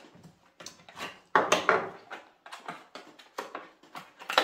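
Clear plastic bag crinkling and rustling as it is handled and opened, with small clicks of hard plastic parts against the bag and table and one sharp click near the end.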